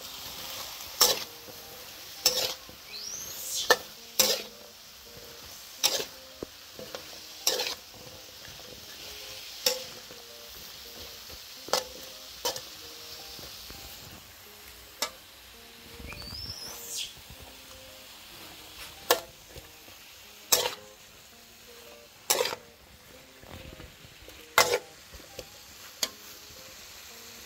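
Stir-frying in a metal wok: vegetables sizzle steadily while a metal spatula clanks and scrapes against the pan every second or two.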